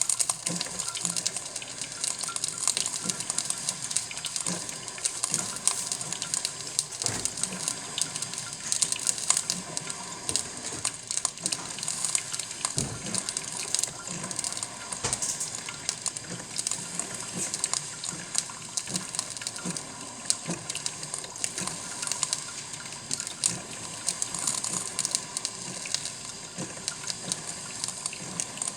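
Cuisinart drip coffee maker brewing: hot water boiling and sputtering through the machine and filling the carafe, a steady hiss with many small crackles.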